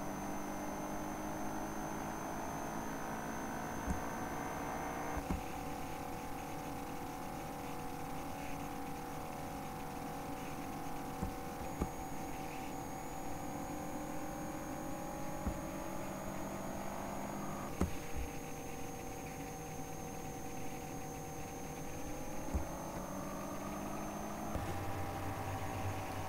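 A steady electrical hum made of several held tones that shift every few seconds, with a few faint clicks.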